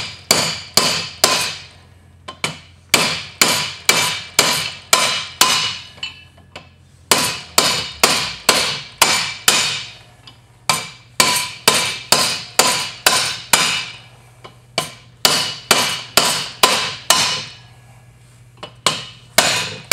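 A hammer striking a long steel punch to drive and seat new wheel studs in a Dana 30 front hub with the disc brake rotor mounted behind it. The blows are sharp and metallic, about three a second, in runs broken by short pauses.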